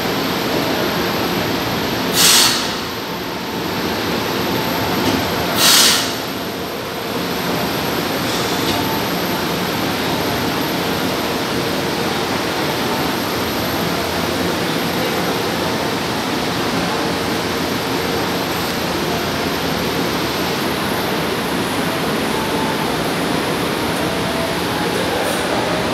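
Subway train standing at an underground platform with its doors open: a steady din from the train and the station crowd, with two short, sharp hisses about two seconds in and again about three and a half seconds later.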